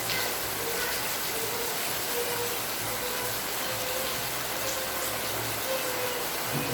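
Steady rain falling, an even hiss with no let-up. A faint wavering tone comes and goes underneath it.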